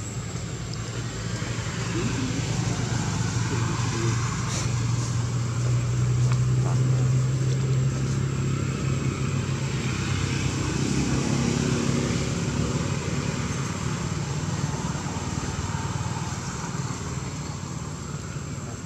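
A motor vehicle's engine humming, growing louder toward the middle and fading toward the end as it passes, with a faint steady high-pitched whine behind it.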